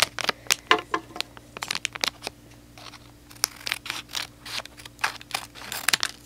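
Scissors snipping through a shiny foil blind-bag toy wrapper while fingers crinkle the packaging, a string of short, irregular crackles and snips.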